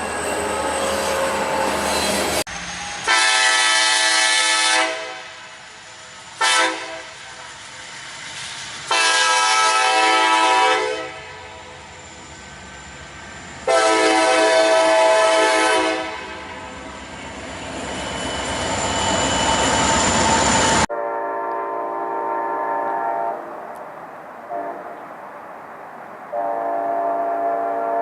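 Nathan Airchime K5LA five-chime locomotive horns sounding a series of chord blasts, some long and one short, from several trains in turn; the last few blasts are quieter.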